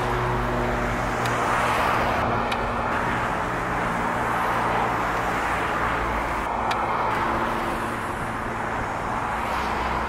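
Steady city street traffic, with cars running and passing. Twice, a brief high-pitched note cuts through.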